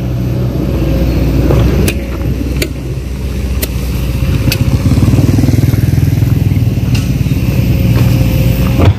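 Small motorbike engine running as the bike rides past on a dirt road, getting louder about halfway through and staying loud until near the end.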